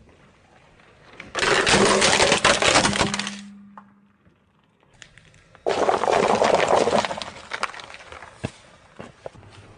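A car tyre rolling over and crushing brittle objects: two loud spells of crunching and cracking, the first about a second and a half in and the second a little past the middle. Each trails off into scattered crackles.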